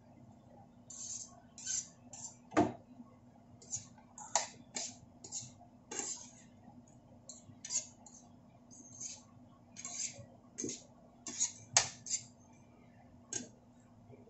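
A metal spoon stirring and scraping fried tofu and pork pieces around a nonstick frying pan: irregular short scrapes, with a few sharp knocks of the spoon against the pan.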